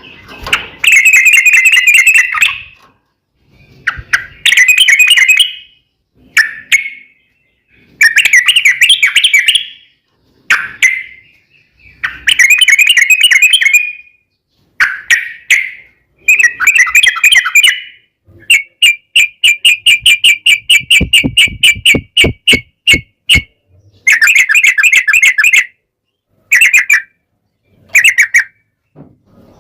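Yellow-vented bulbul (trucukan) singing very loudly: short bubbling, chattering phrases repeated every couple of seconds, with a fast run of rapid repeated notes about two-thirds of the way through.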